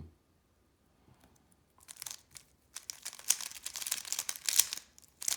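Plastic Rubik's cube layers being turned in a fast run of moves, a dense rattle of quick clicks and rasps for about three seconds, with one last click near the end: a setup move and corner-swap algorithm being executed.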